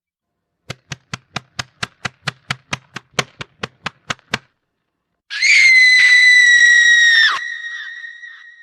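Horror sound effect: a run of about eighteen sharp knocks, roughly five a second, then after a short gap a loud, shrill scream held on one high pitch for about two seconds. It cuts off sharply and leaves a fading ringing tail.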